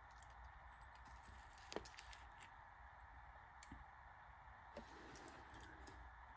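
Near silence over a steady low hum, broken by a few faint clicks of a dial caliper's jaws being set against a chainsaw piston, the clearest a little under two seconds in.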